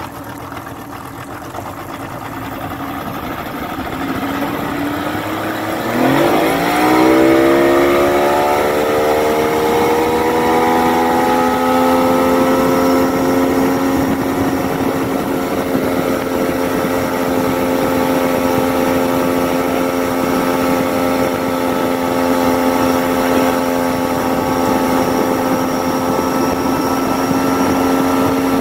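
Yamaha 70 hp outboard motor running slowly, then throttled up about six seconds in. Its pitch climbs as the boat comes up on plane, then holds steady at cruising speed.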